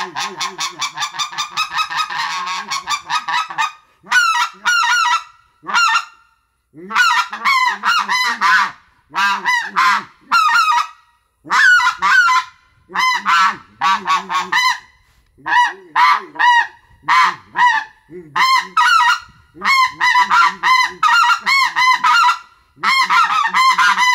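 RedBone 'Coyote' Delrin goose call blown in fast runs of honking and clucking notes: an unbroken flurry for about the first four seconds, then quick strings of notes with short breaths between them.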